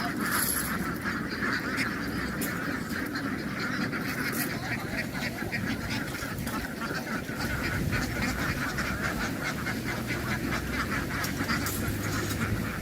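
A large flock of domestic ducks quacking all at once in a dense, continuous clamour. A low steady hum comes in about halfway through.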